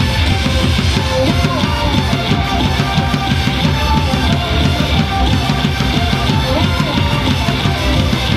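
Loud rock-style baseball cheer song, with a heavy, fast drum-kit beat, bass and guitar.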